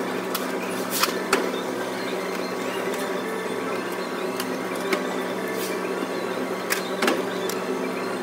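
A steady machine hum with a few sharp metallic clicks and clinks scattered through, two close together about a second in and more near the end.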